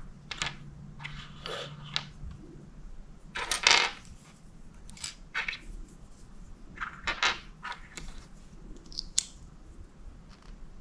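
Small plastic miniature pieces clicking and clattering against each other and on a wooden tabletop as they are handled and set down, at irregular moments; the loudest clatter comes about three and a half seconds in.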